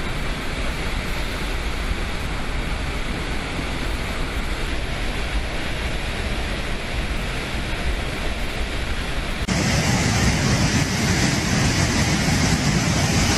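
Steady rushing of water pouring through a dam's fully opened floodgates. About nine and a half seconds in it cuts abruptly to a louder, rougher rush of a muddy flash-flood torrent.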